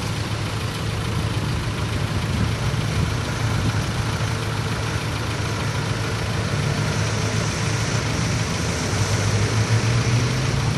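Land Rover Defender's engine running at low revs as it creeps down a bank and wades into a deep river crossing, getting louder in the last few seconds as it drives into the water. An even rush of noise lies under it.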